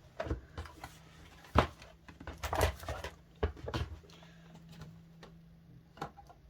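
Plastic DVD cases and their packaging being handled and set down: a run of sharp clacks and rustles, the sharpest knock about a second and a half in, quieter fiddling after about four seconds.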